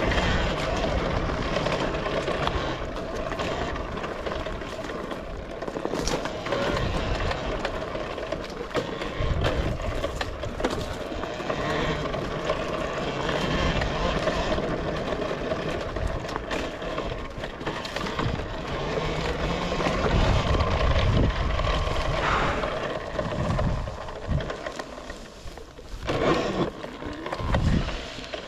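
Talaria Sting electric dirt bike ridden along a rough trail: a steady whine from the electric motor and drive runs under rumbling wind buffeting and knocks from the bumps. It eases off in the last few seconds, with a couple of louder knocks near the end.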